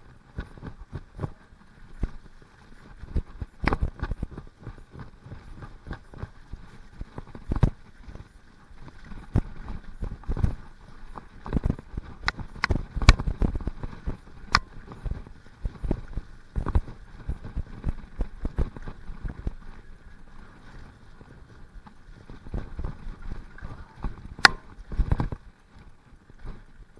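Mountain bike riding fast down a wet, muddy dirt trail: a steady rumble of tyres on the ground, with irregular knocks and rattles from the bike as it hits bumps. The sharpest knocks come about halfway through and near the end.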